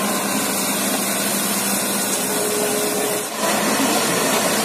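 Steady rushing noise of a moving vehicle with a faint motor hum under it, dipping briefly about three seconds in.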